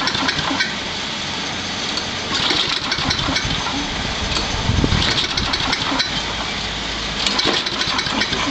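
Small lawnmower engine being cranked over by an electric starter without catching. Its gasoline line is clamped off and the hydrogen gas from the HHO generator has not yet reached the carburetor through the long hose.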